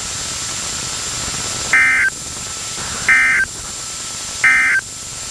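Three short Emergency Alert System end-of-message data bursts, buzzy two-tone warbles about a second apart, over steady radio hiss. They signal the end of the alert message.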